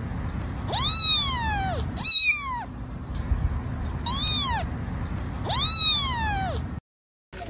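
Kitten meowing four times, each meow rising and then falling in pitch, over a low steady background rumble.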